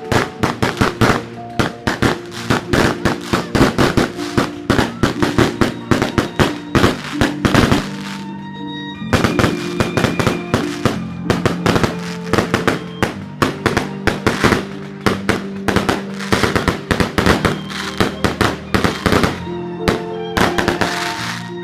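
A long, rapid string of firecrackers crackling and banging, with a short lull about eight seconds in. Music with held notes plays underneath.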